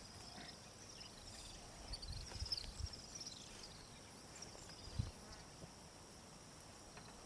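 Quiet bush ambience: a steady high insect drone with a short run of high chirps a couple of seconds in, and a few soft low thumps.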